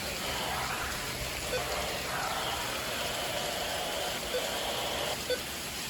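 Heavy rain coming down hard, a steady even hiss of rain on surfaces, with a few small drip ticks.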